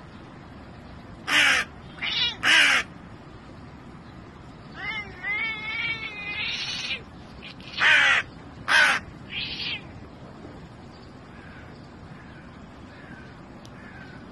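Hooded crow cawing: harsh calls, three around a second and a half to three seconds in and three more around eight to ten seconds in, with a run of wavering, gurgling calls between them and fainter calls near the end.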